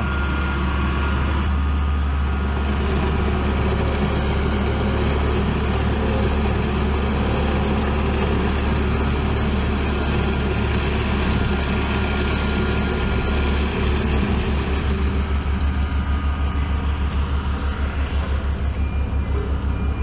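Diesel engine of an asphalt paver running steadily at close range, a loud low hum. About two-thirds of the way through, the sound changes to a fast, even low throb of several pulses a second.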